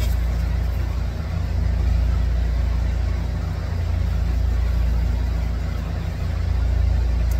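A steady low mechanical hum, like a motor running, with no other events.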